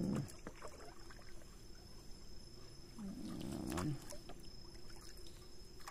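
Shallow, muddy water sloshing and splashing as someone wades and gropes through it by hand, with two louder swells, one at the start and one about three seconds in, and scattered small splashes and drips.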